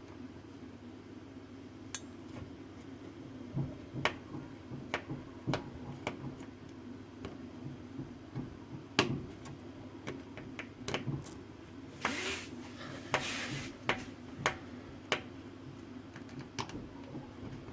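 Small hard clicks and taps of a precision screwdriver and tools on a mini smartphone's parts, scattered irregularly, with a short scraping rustle about twelve seconds in, over a steady low hum.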